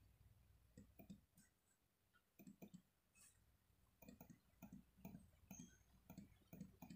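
Near silence: room tone with faint, scattered clicks, more of them in the second half.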